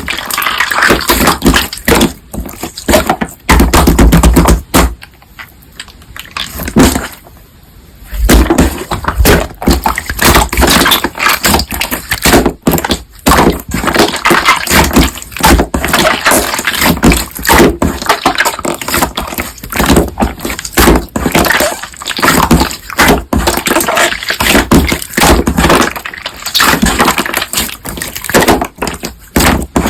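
Crunchy slime being squeezed and kneaded by hand, giving a dense, irregular run of crackles, pops and clicks with the odd heavier squelch.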